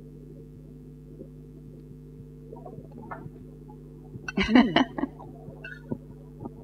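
A steady low electrical hum, with a brief wordless vocal sound a little past halfway through, like a laugh or an appreciative murmur, and a few faint small clicks after it.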